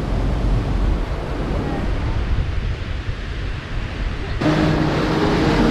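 Wind buffeting the microphone over the rush of the sea as a motor yacht cruises under way. Background music with steady held notes comes in about four seconds in.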